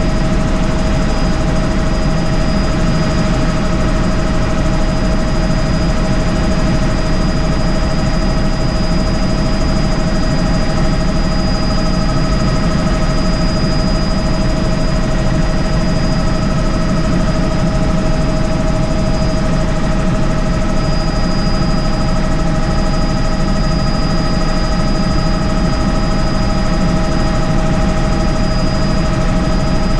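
Helicopter in flight heard from inside the cabin: steady rotor and turbine noise, with a constant high whine over it.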